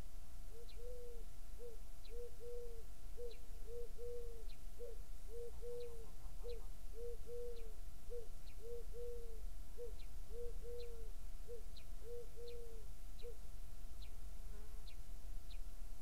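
A pigeon cooing: a rhythmic series of low coos, short notes alternating with longer ones, that stops about 13 seconds in. A small bird's faint, thin high calls repeat about every half second behind it.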